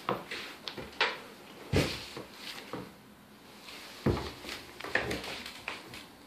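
A golden retriever puppy licking and gnawing a frozen stuffed rubber Kong toy as it knocks against a hardwood floor: irregular clicks and knocks, the two loudest about two and four seconds in.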